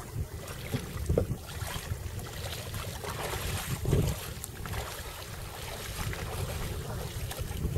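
Wind buffeting the microphone in an uneven low rumble that swells in gusts, with water lapping against a paddleboard.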